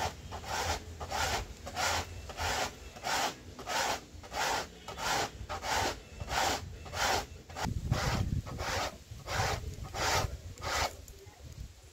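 Corn being rubbed up and down a hand grater standing upright in a plastic basin: regular rasping strokes, about two a second, that stop near the end.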